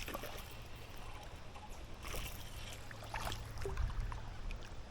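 A few brief water splashes and trickles, about two seconds in and again about three seconds in, over a steady low rumble of moving river water.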